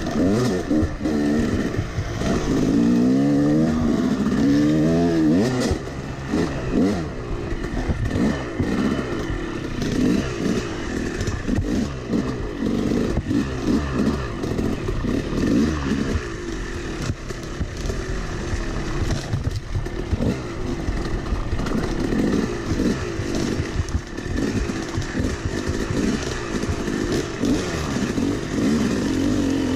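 Yamaha 250 two-stroke dirt bike engine revving up and down as the bike climbs a rutted, rocky trail, with the bike rattling over the bumps. A few seconds in, the revs rise in several quick sweeps.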